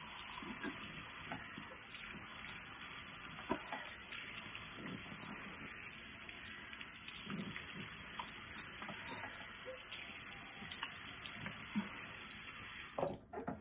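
Bathroom tap running steadily into a sink while a face is rinsed, with small splashes of water; the running water stops suddenly near the end.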